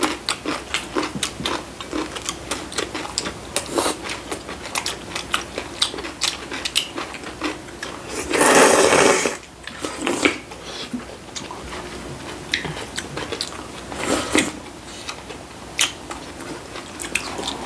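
Close-up eating sounds: wet chewing and mouth clicks in a quick, uneven patter, with a long loud slurp of kalguksu noodles and broth about eight seconds in and a shorter slurp around fourteen seconds.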